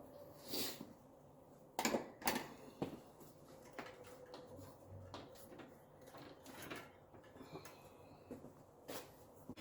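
Hand tools and bike parts being handled at a workbench: irregular clicks and knocks, the loudest two close together about two seconds in, over a faint steady hum.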